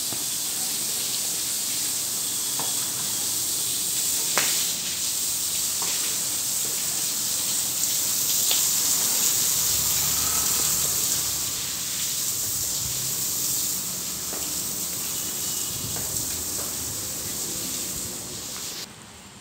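Water running from a garden hose onto wet paving tiles, a steady hiss that cuts off shortly before the end.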